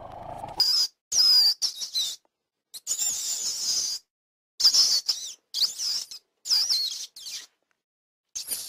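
Bandicoot squeaking: a run of high-pitched squeaks and chirps that glide and waver in pitch, coming in short spells with brief silences between them.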